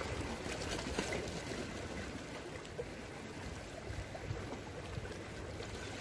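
Sea water washing and trickling among shoreline rocks, a steady rushing noise with a faint click about a second in.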